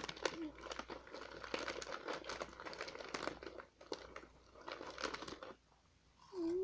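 A plastic snack chip bag being handled and rummaged in: a dense crinkling and crackling that runs for about five and a half seconds and then stops.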